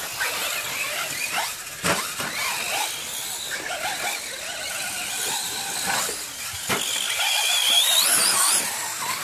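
Radio-controlled short course trucks' motors whining, the high pitch gliding up and down with the throttle and loudest near the end. Two sharp knocks stand out, about two seconds and about seven seconds in.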